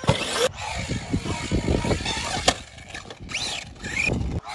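Losi 5ive-T large-scale RC truck's two-stroke gas engine revving up and down, broken by sudden cuts a few times.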